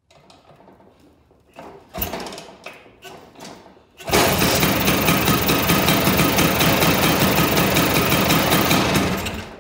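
Vespa P200e scooter's two-stroke engine with a Pinasco 225cc cylinder being kick-started: a few clunks from the kickstart, then the engine catches about four seconds in and runs loudly and steadily before dying away near the end.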